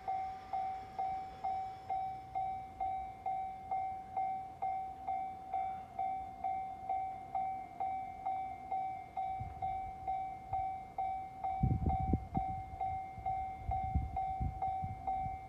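Japanese railway level-crossing warning bell ringing its repeated clang a little over twice a second, each strike a single tone that fades quickly. Bursts of low rumble come in about two-thirds of the way through.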